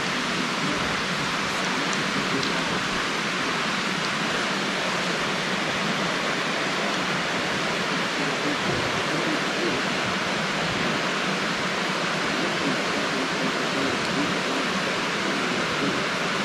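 Steady rushing of a waterfall: an even, unbroken wash of falling water.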